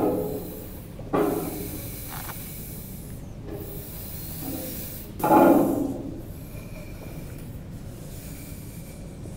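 Three short, muffled vocal bursts from a man with a cloth over his head, each fading away within about a second. Under them runs a steady hiss, with cloth rubbing.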